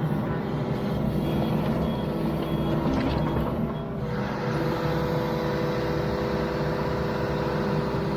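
Yanmar VIO55 mini excavator's diesel engine running under hydraulic load as the bucket is dragged along the ditch bottom, with a steady whine joining about halfway through.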